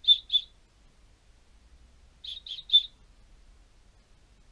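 Small cylindrical brass whistle blown in two quick sets of three short, high-pitched toots, about two seconds apart; not really loud.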